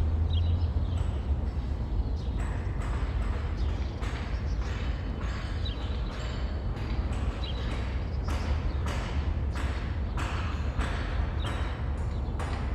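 City street ambience: a steady low rumble of traffic under a general hum, with frequent short clicks and knocks, busier in the second half, and a few faint high pings.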